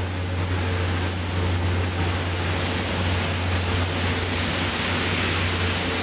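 Steady low hum under a wash of street noise, with the hiss of a car's tyres on a wet, slushy road growing louder near the end as the car approaches.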